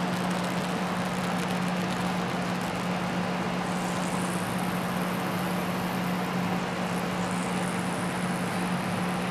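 An iPhone speaker at full volume playing a steady low tone from a tone-generator app, with a harsh buzzing hiss over it from the water inside the speaker, which the vibration is driving out.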